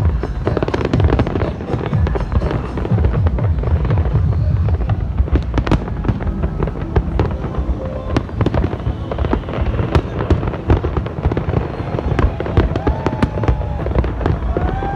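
Large aerial fireworks display: a continuous barrage of sharp bangs and crackles over a deep, steady rumble of shell bursts.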